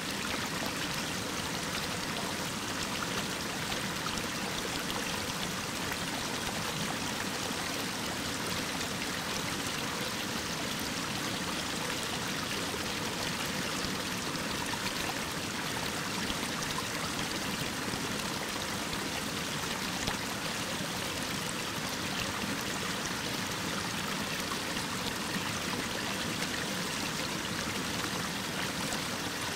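Mountain waterfall pouring down a rock face: a steady, even rush of falling water.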